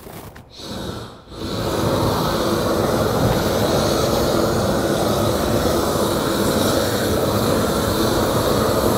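Handheld gas torch running at full flame, a steady loud blast that comes on about a second and a half in.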